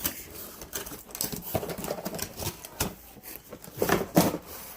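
Cardboard product box being opened by hand: irregular scrapes, taps and rustles of cardboard flaps and packaging, with a few louder knocks about four seconds in.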